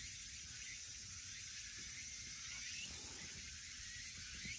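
Outdoor background: a steady high hiss with faint short rising chirps about once a second, over a low rumble.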